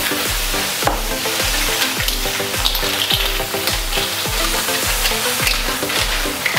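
White clams (lala) being stir-fried in a hot wok: a steady sizzle of oil and chilli paste, with the shells clicking against the wok and each other as a spatula turns them. Background music with a steady beat plays underneath.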